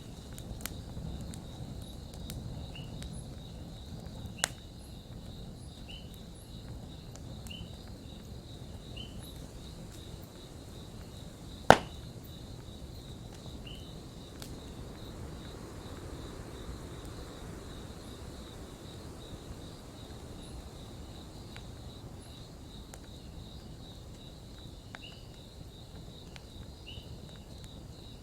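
Campfire burning with a low rumble and scattered crackles, broken by two sharp pops, the louder one just before halfway. Crickets chirp steadily behind it in a regular, repeating rhythm.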